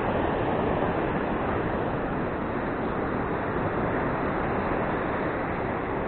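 Steady noise of ocean surf breaking on the beach, mixed with wind on the microphone.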